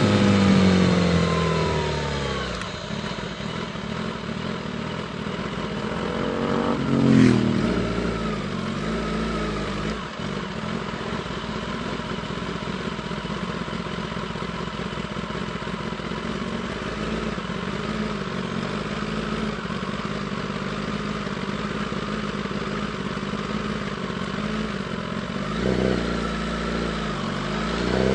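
2016 Kawasaki ZX-10R's inline-four engine dropping in revs at the start, with a short rev about seven seconds in. It then runs low and steady for a long stretch under an even rush of wind and road noise, and picks up revs again near the end.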